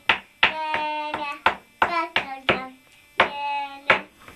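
Young child singing a tune in short held notes, with a sharp hand clap at the start of each note, about nine claps in steady rhythm.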